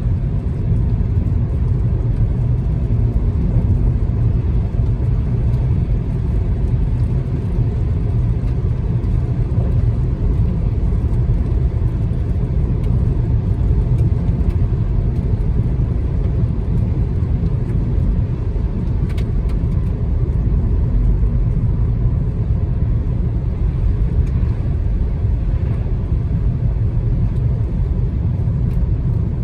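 Steady road and engine noise of a car being driven, a continuous low rumble heard from inside the car.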